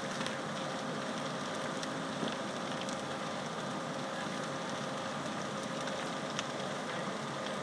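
Steady rushing noise of a large structure fire being fought: a fire engine's pump running with a faint steady hum, water hissing from the hoses, and scattered sharp pops and crackles from the burning building.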